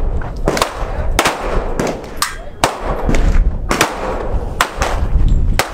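Gunfire from several shooters firing at once: about ten sharp, irregularly spaced gunshots, some nearly overlapping.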